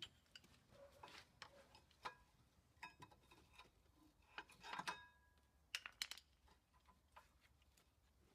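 Faint metallic clicks and clinks, several with a short ringing tone, as old brake pads are worked out of a disc brake caliper carrier: the steel pad backing plates knocking against the carrier.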